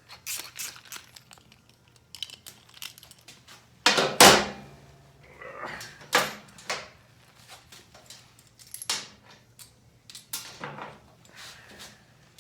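Small metal parts and hand tools being handled and set down: scattered clicks and clinks, with one louder clank about four seconds in.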